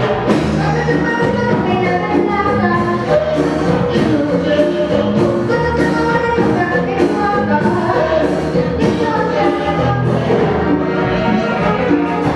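Music playing steadily, with singing.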